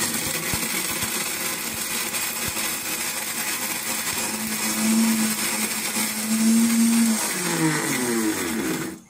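Electric mixer-grinder running, dry-grinding crab claws with no water in a small steel jar, the hard shell pieces grinding inside. It starts abruptly, and its pitch falls as the motor winds down near the end.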